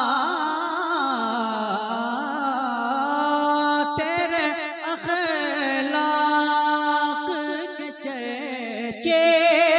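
Amplified male voice singing an Urdu memorial poem, drawing out long wavering notes with little break between them.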